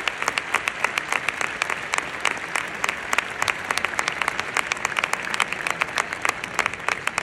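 A small group applauding, with the individual hand claps distinct and keeping up steadily.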